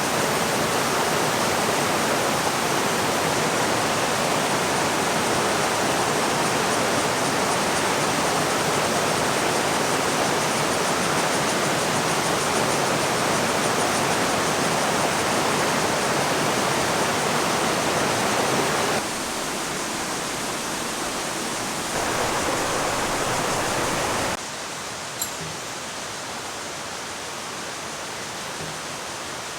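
Rushing water of a mountain stream, a steady loud hiss. Its level drops suddenly about nineteen seconds in, jumps back briefly, then drops again, with a single small click shortly after.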